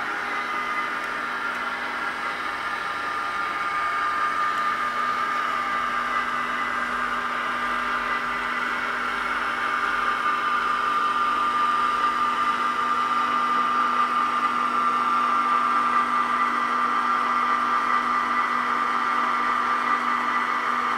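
Hornby Eurostar model's DCC sound chip playing a recorded Eurostar rounding a curve: a steady, high flange squeal over the hiss of the carriage air conditioning, growing a little louder as the model approaches.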